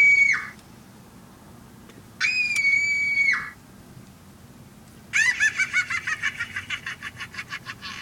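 Shrill, high-pitched sound effects: two held squealing notes of about a second each, then a fast warbling trill from about five seconds in that fades out.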